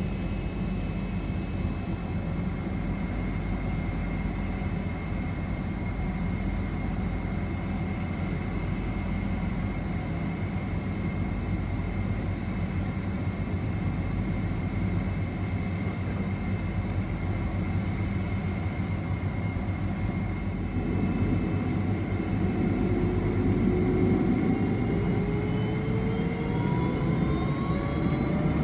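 Boeing 767-336ER's Rolls-Royce RB211 turbofans heard from inside the cabin, running steadily at low power with a faint high whine. About 21 seconds in they spool up for the take-off roll: the sound grows louder and a whine climbs steadily in pitch.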